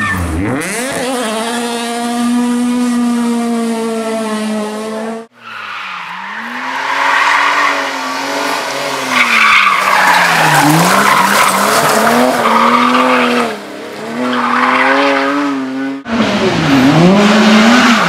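Rally car engines at high revs across three quick cuts. First a Peugeot 208 rally car's engine is held at steady high revs, then cuts off. Next a BMW E30 rally car's engine falls and rises several times as the driver lifts and gets back on the throttle while sliding, with the tyres scrabbling on loose gravel. Near the end a Honda Civic rally car's engine dips and revs up again.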